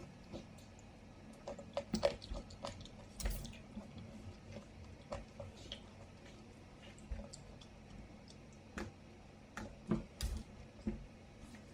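A spoon clicking and scraping against a bowl while yogurt is eaten: irregular light taps, a few louder clinks about two seconds in and near ten seconds.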